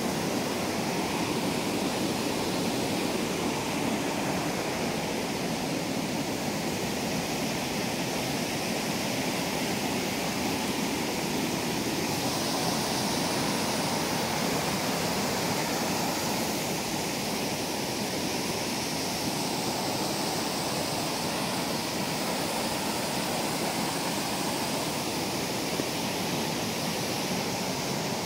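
Creek waterfall cascading over rock ledges: a steady, even rush of white water.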